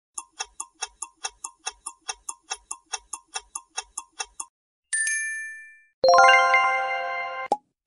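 Countdown clock ticking sound effect, about five quick ticks a second for four and a half seconds. A single bright ding marks time up, then a louder chime of several tones rings for about a second and a half and cuts off suddenly, with a short pop at the very end.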